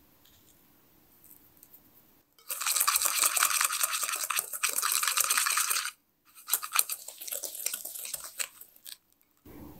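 Wire balloon whisk beating softened butter with granulated sugar in a mixing bowl: fast scraping strokes of the wires against the bowl. It comes in two stretches of about three seconds each, the first starting about two and a half seconds in. This is the creaming stage of a ginger-cookie dough.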